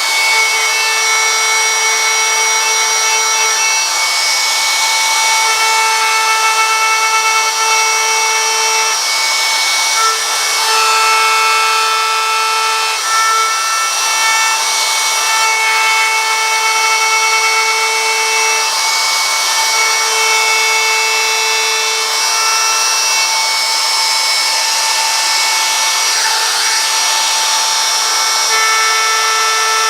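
A small power tool's motor runs steadily as it cuts into wood, giving a constant whine, with some of its tones dropping in and out as the load changes.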